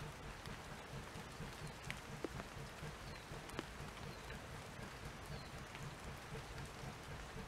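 Light rain falling steadily, with a few louder drips.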